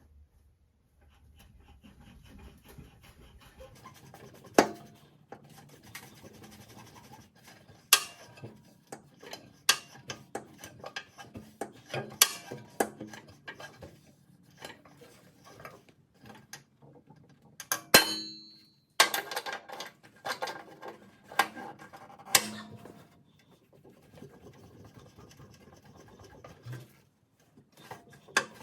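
Hand tools working at a broken bolt in a steel mower deck: irregular metal clinks, taps and scraping, with a handful of sharper knocks.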